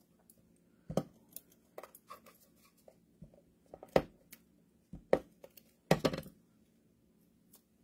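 Paper-crafting handling sounds: scattered light clicks, taps and rustles as fingers and a metal pick tool work a small die-cut cardstock pine branch on a silicone mat. The sharpest taps come about a second in and near the middle, with a short cluster toward the end.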